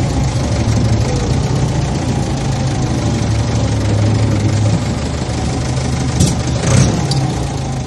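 Heavy farm-machine engine running steadily at an even pitch, with a couple of short, sharp knocks about six seconds in.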